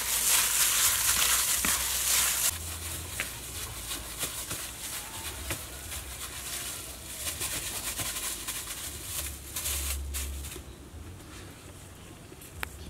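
Ground pork being mixed by hand with seasonings in a plastic bowl, a loud squishing that stops suddenly about two and a half seconds in. After it, quieter outdoor background with scattered small taps.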